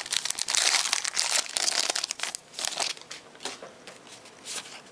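Trading-card pack wrapper being torn open and crumpled, a dense crinkling for about two seconds, then a few lighter rustles and clicks of handling.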